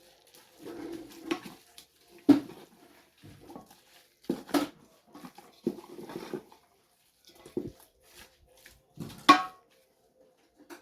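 A spoon stirring cooked greens in a cooking pot: irregular scrapes and clinks against the pot, with a few sharp knocks.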